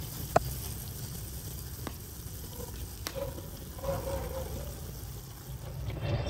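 A large pot of liquid boiling hard over an open wood fire, bubbling and sizzling, with a few sharp snaps from the burning wood, the loudest about half a second in.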